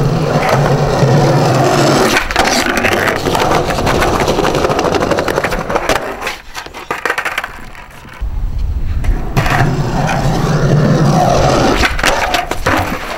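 Skateboard wheels rolling over concrete with a steady rumble, dropping away for a few seconds in the middle. Near the end come a sharp pop and clattering knocks as a board leaves a step and lands.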